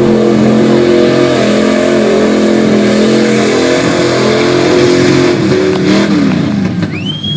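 Lifted pickup truck's engine running hard at high revs as it pushes through a mud bog, then the revs drop about six seconds in. A high whistle rises near the end.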